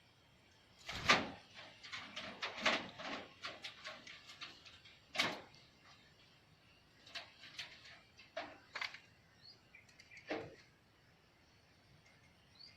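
A scatter of sharp knocks and clatters, the loudest about a second in, with a couple of faint short chirps.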